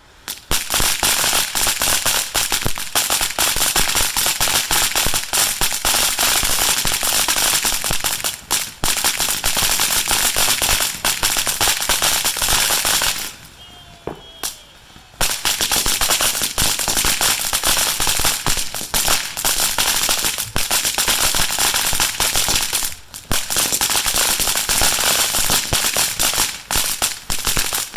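Firecrackers going off in a rapid, continuous crackle of loud bangs. It starts abruptly, breaks off for about two seconds midway, then crackles on again and thins out near the end.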